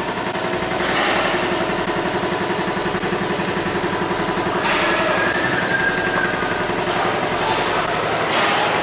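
Car engine idling steadily, with an even pulsing beat.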